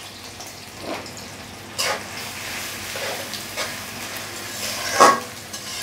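Freshly chopped onions sizzling in hot oil in a metal karahi, stirred with a spatula that scrapes against the pan a few times, the loudest scrape about five seconds in.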